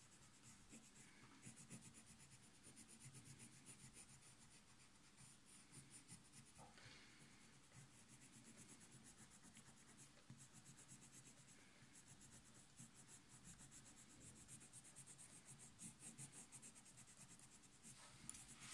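Colored pencil scratching on drawing paper in quick, repeated short strokes as hair is shaded in, faint.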